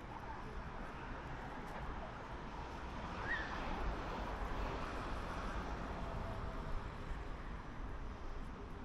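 Street ambience dominated by traffic: a steady wash of road noise with low rumble, swelling a little in the middle as vehicles pass.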